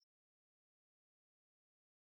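Near silence: the audio track is essentially empty, with a single faint click at the very start.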